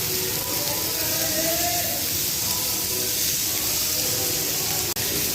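Steady hiss with faint soft tones underneath; it cuts out for an instant near the end.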